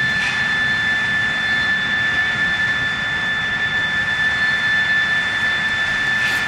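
Steam escaping from the sawmill's steam plant: a loud, steady hiss with a thin, steady high whistling tone in it.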